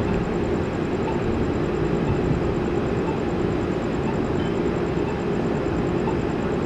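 Steady low mechanical rumble, even in level throughout.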